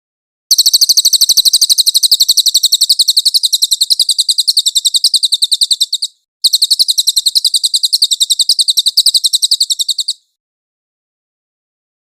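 Cililin bird singing: a rapid, high-pitched trill of evenly repeated notes, in two long runs with a short break about six seconds in.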